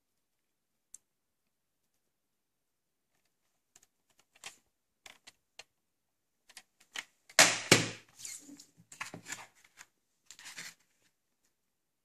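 Hard plastic clicks and knocks from a VHS cassette and its clear plastic clamshell case being handled, with one loud clack about seven and a half seconds in, followed by a run of lighter clicks and rustling.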